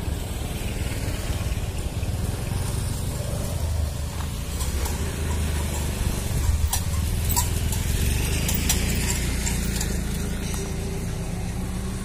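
Steady low rumble of a small motor vehicle such as a motor scooter, with a few sharp clicks between about five and nine seconds in.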